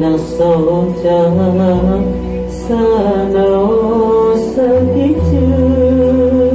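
A man singing a Sundanese song into a microphone, his voice bending and ornamenting the melody, over a musical accompaniment with held bass notes and a light regular beat.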